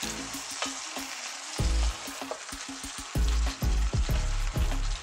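Red beans, pork and onions sizzling in hot oil in a pot as a wooden spoon stirs them, with the spoon scraping and clicking against the pot.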